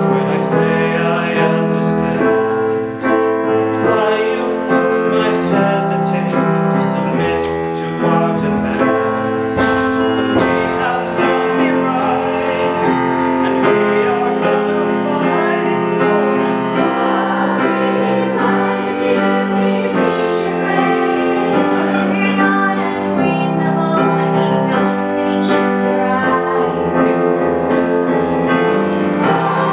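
Grand piano accompaniment with a group of young voices singing together.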